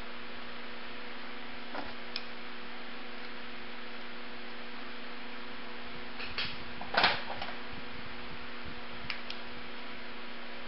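Steady electrical hum with a few light clicks of handling, and one louder knock about seven seconds in.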